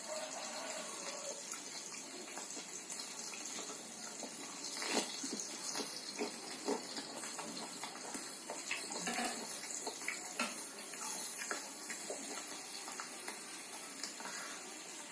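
Close-up wet chewing and lip-smacking of grilled meat: irregular short smacks and clicks over a steady hiss.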